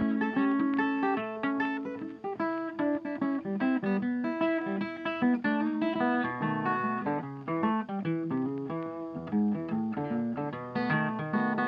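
Background music: a bluesy acoustic guitar piece with quick plucked notes.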